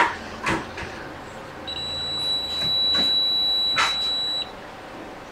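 Multimeter continuity beeper sounding one steady high beep of about three seconds as the probe tip touches the capacitor's ground pad, showing a dead short to ground, which is expected on the ground side. A few light clicks of the probe tip on the board come before and during it.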